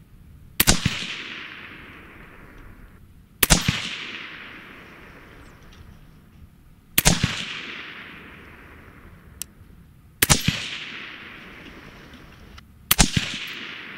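Suppressed AR-15 with a Liberty Infiniti X suppressor firing five shots of handloaded .223 ammunition, about three seconds apart. Each shot is a sharp report followed by an echo that dies away over a couple of seconds.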